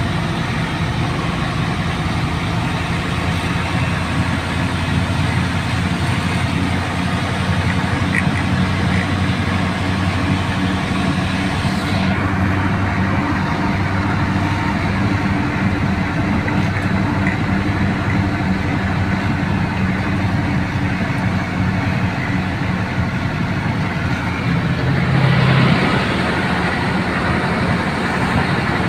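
Heavy truck's diesel engine running steadily while driving, heard from inside the cab with road noise. Near the end the engine note and road noise briefly grow louder.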